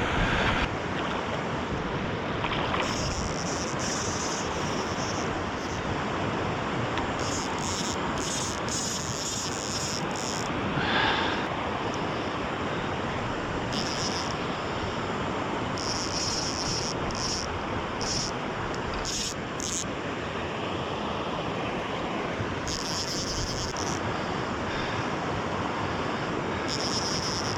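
Steady rushing noise of flowing river water, with brief high-pitched chirps coming and going over it and a short swell in the noise a little after ten seconds in.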